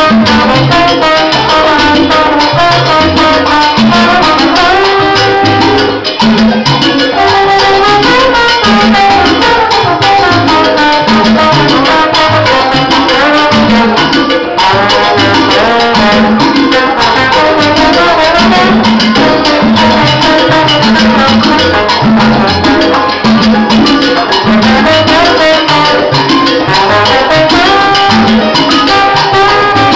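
Live salsa band playing: trombone over upright bass, congas and keyboard.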